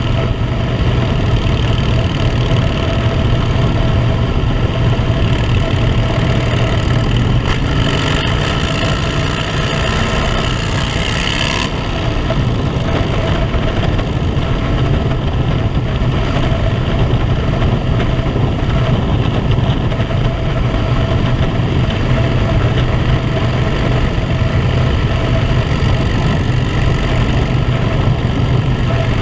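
Harley-Davidson V-twin engine running steadily at cruising speed under the rider, with wind rushing past. A brighter hiss swells about eight seconds in and cuts off suddenly a few seconds later.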